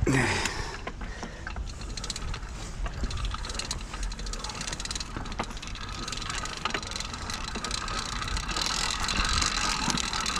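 Rapid mechanical ticking and ratcheting from a motorized bicycle's drivetrain, with a rushing noise building near the end. A short falling swoop sounds at the very start.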